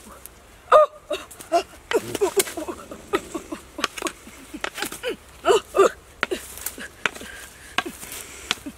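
A woman's short grunts and wordless cries, repeated irregularly, over scattered sharp knocks and rustling in the undergrowth as she struggles to hold down a crocodile with a long-handled tool.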